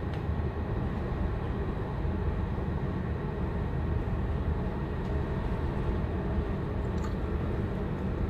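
Steady low rumble of strong wind and rough sea heard on the open deck of a cargo ship, with no distinct events.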